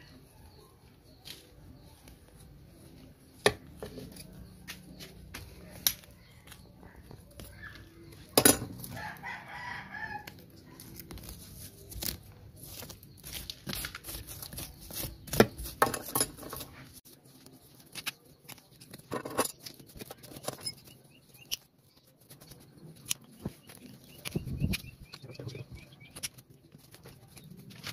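Bonsai shears snipping and a root hook scraping through root-bound soil and fibrous roots: a string of irregular sharp clicks and scratches. Chickens call in the background, with a longer call about nine seconds in.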